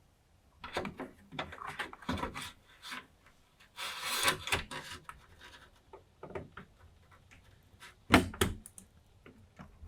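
Hands handling hardware on a desk: scattered clicks and taps, a rubbing, scraping stretch about four seconds in, and one sharp knock near the end.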